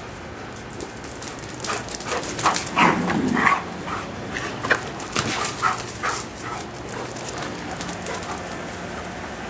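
Giant Schnauzers playing, making short dog vocal sounds among quick clicks and scuffs, busiest and loudest about three seconds in and dying down after about six seconds.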